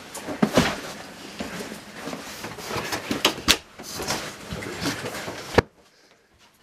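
Rustling and scattered knocks and bumps as a large fabric bundle is hauled through a narrow hallway and set down by the front door, with one sharp knock about five and a half seconds in, after which the sound cuts away suddenly to near silence.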